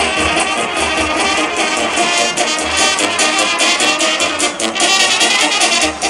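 Serbian brass band playing live: a line of trumpets with larger bell-up horns and a drum.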